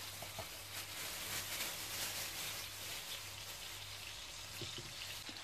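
Hot oil sizzling and crackling steadily under pieces of meat-stuffed tofu shallow-frying in a non-stick pan, over a low steady hum.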